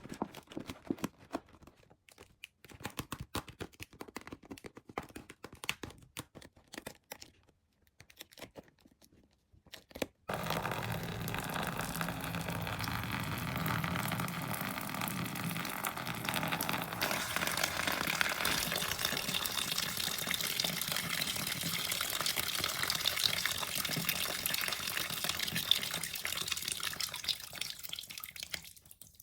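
Light plastic clicks and taps, then about ten seconds in water suddenly starts running and pours steadily into a container, filling it. The running stops just before the end.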